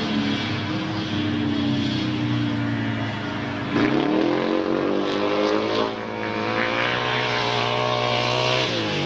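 Single-cylinder 500 cc methanol speedway motorcycle engine running on the throttle. It holds a steady note, opens up sharply and louder about four seconds in, climbs in pitch, and falls back just before the end.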